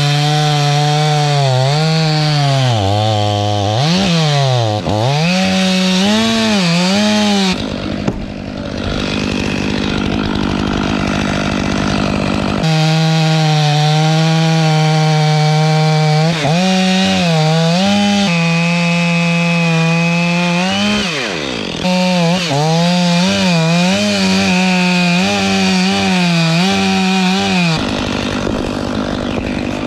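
Stihl 500i two-stroke chainsaw running at high revs and cutting through a cedar spar, its engine pitch repeatedly dipping and recovering as the chain loads in the wood. Twice the engine tone gives way to a rougher, noisier sawing sound for several seconds.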